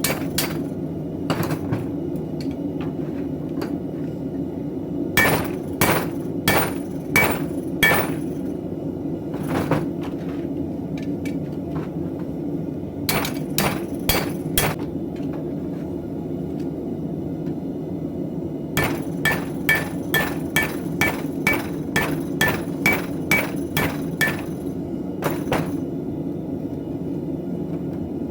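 Blacksmith's hammer striking knife steel on an anvil during hand forging: runs of ringing blows at about two a second, with fainter taps between the runs, over a steady low hum.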